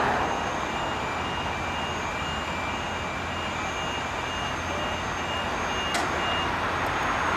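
Vehicle backup alarm beeping steadily, about two beeps a second, over the steady rumble of heavy machinery, with one sharp click about six seconds in.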